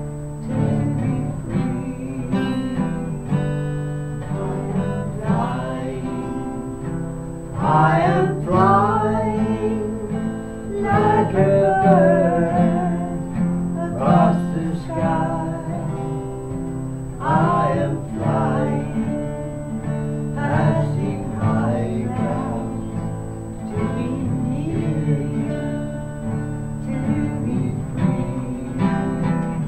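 Acoustic guitar strummed as accompaniment to a song, with voices singing over it, the singing strongest from about eight seconds in.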